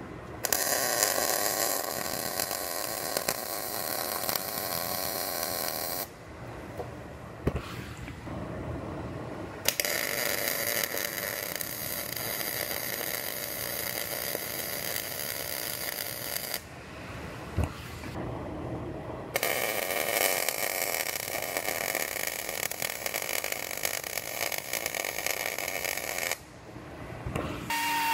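Wire-feed (MIG) welder laying beads along a steel frame rail seam: three runs of steady arc crackle, each about six or seven seconds long, with short pauses between them.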